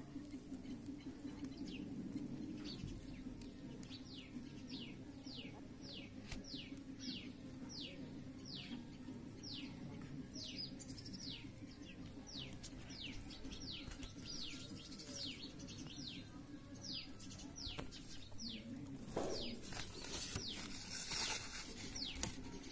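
Newborn puppies squeaking: a long series of thin, high-pitched, falling cries, about one or two a second, over a steady low hum. Near the end the phone is handled, with rustling and knocks.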